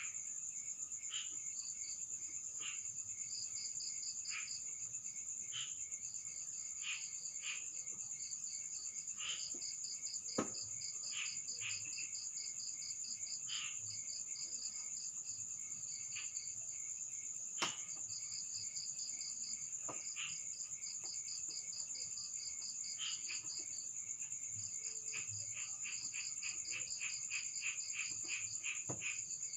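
Insects trilling and chirping in a steady chorus: a continuous high-pitched trill with repeated pulsed chirps over it. Two sharp clicks stand out, about ten and eighteen seconds in.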